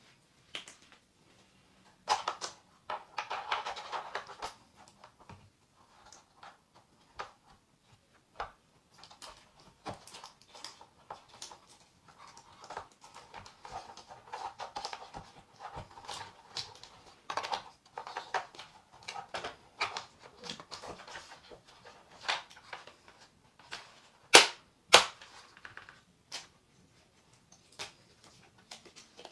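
Hands fitting a battery pack into an RC monster truck's plastic battery tray: rustling of wires and plastic with many small clicks and knocks, and two loud sharp snaps close together about 24 seconds in.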